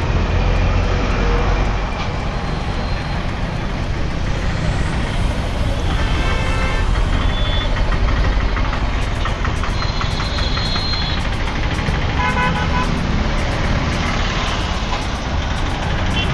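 Busy road traffic: motorcycles, scooters and larger vehicles running past with a steady low rumble, and a few short vehicle horn toots.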